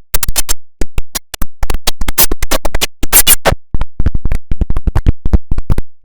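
IBM OS/2 Warp 3 shutdown sound, digitally chopped into rapid, irregular stuttering fragments, several a second, like record scratching.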